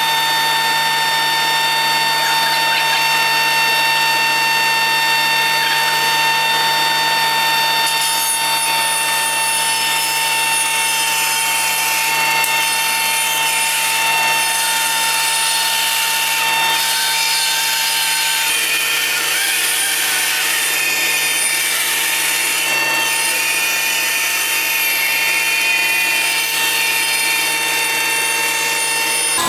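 Felder FB 510 bandsaw running and ripping a large, dried wood burl lengthwise: a steady motor-and-blade whine with the rasping hiss of the blade cutting through the wood, which grows a little stronger after several seconds.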